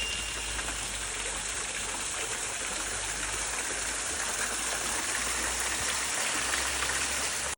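Steady rush of flowing water, like a stream or small waterfall, unchanging throughout.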